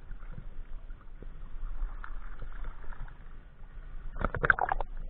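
Muffled sloshing and water noise around a waterproof camera held at the surface of a river, half in and half out of the water. A burst of sharp splashes about four seconds in.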